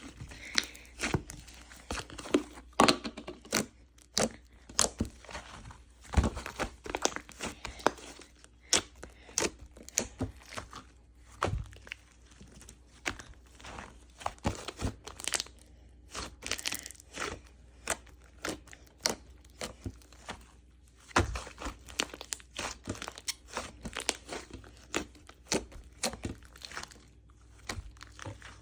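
Slime being squeezed and stretched by hand, making irregular sharp pops and crackling clicks, several a second.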